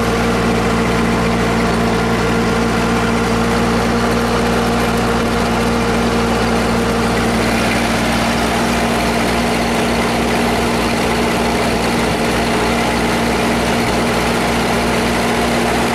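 Ford N-series tractor's four-cylinder flathead engine running steadily as the tractor drives along a road. It is running well.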